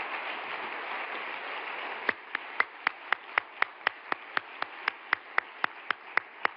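Large audience applauding. After about two seconds the general applause thins, and loud, evenly spaced single claps stand out above it, about four a second.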